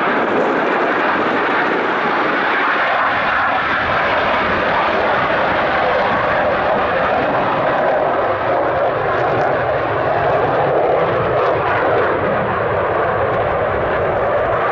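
Boeing F-15QA Eagle's twin General Electric F110 turbofans at high power as the jet climbs out after a touch-and-go: a loud, steady jet roar that deepens gradually as the aircraft pulls away.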